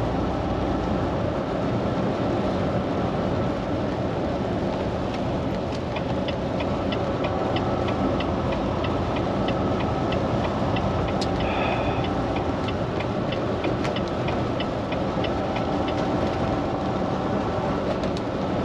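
Steady noise inside a Volvo semi truck's cab at highway speed in heavy rain: the engine running, tyres on the wet road and rain on the truck. Through the middle, a light, regular ticking runs for about ten seconds.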